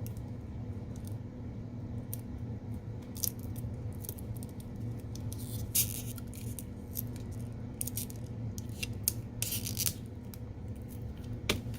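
Scattered short scraping and scratching sounds, with a few clicks, as small tools work the adhesive pull tabs under an iPhone 6s battery. The strongest come about six seconds in and again around nine to ten seconds, over a steady low hum.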